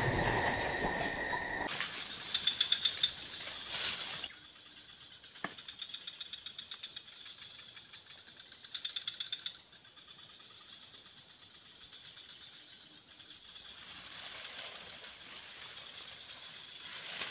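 Insects droning in the undergrowth: a steady high-pitched whine, joined three times by runs of rapid pulsed chirps.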